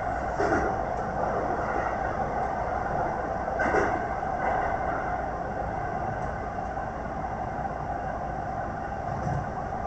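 Keihan 3000-series electric train running through an underground tunnel, heard from inside the front car: a steady running rumble and hum, with two short knocks, about half a second in and again near four seconds in.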